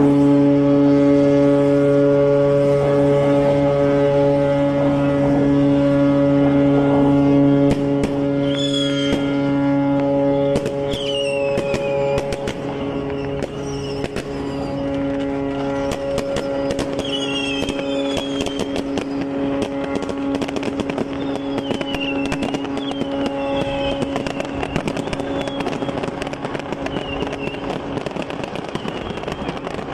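A ship's horn sounds one long steady blast as the vessel slides down the launch airbags, loudest for the first ten seconds, while strings of firecrackers crackle over it. Short high falling whistles cut through from about eight seconds in.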